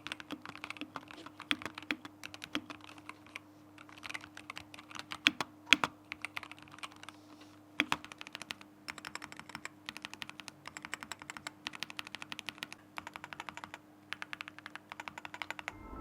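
Typing on a SteelSeries Apex Pro Gen3 TKL keyboard with magnetic Hall-effect switches and Prism keycaps: scattered key clacks, turning into quicker, denser typing about halfway through, over a faint steady hum.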